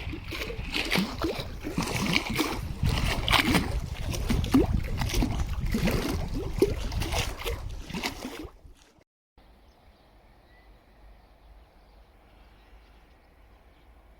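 Water sloshing and splashing close by, with a heavy low rumble under it. About nine seconds in it cuts off suddenly to a faint steady outdoor hiss.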